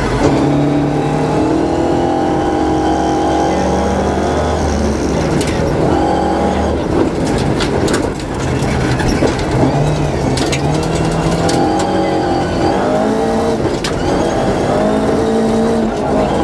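Rally car engine heard from inside the cabin, revving hard and changing gear, its pitch climbing and dropping again and again on a gravel stage, with a scatter of sharp knocks from the road.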